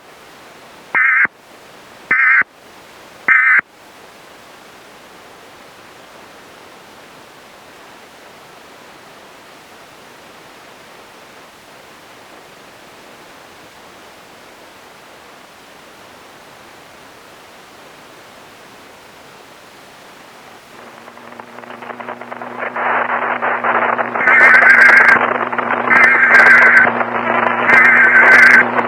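Emergency Alert System broadcast audio: three short bursts of warbling data tones, the SAME header, about a second apart, then a long stretch of steady static hiss. Near the end a hum and noise swell up and three louder header bursts sound.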